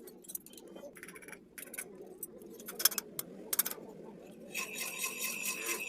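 Metal clinks and clicks from work on an engine cylinder head, irregular and sharp. About two-thirds of the way through, a steady high whine starts and keeps going.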